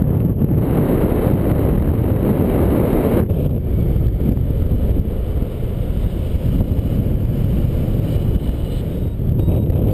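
Wind buffeting the microphone of a camera carried in paragliding flight: a dense, steady low rush, fuller for the first three seconds or so, then a little thinner.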